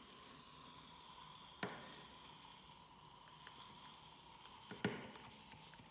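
Faint fizzing of citric acid and baking soda reacting with water in a plastic test tube as it is stirred with a wooden stick, the mix foaming up. Two sharp taps stand out, about one and a half seconds in and near the end.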